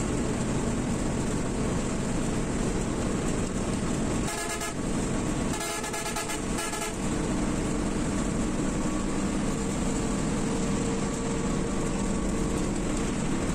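Steady engine and road noise inside a moving bus's cabin at highway speed. A vehicle horn sounds in a few short blasts between about four and seven seconds in.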